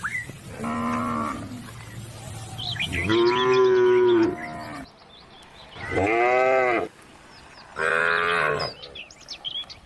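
Cattle mooing: four long, drawn-out calls, one every two seconds or so. The second call, about three seconds in, is the loudest.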